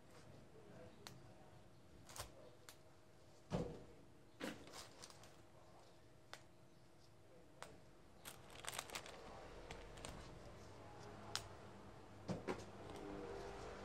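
Faint crinkling of a plastic bag and small clicks as red chilies are handled and picked over, over a faint steady hum. The clicks are scattered, with the sharpest about three and a half seconds in and a short flurry past the middle.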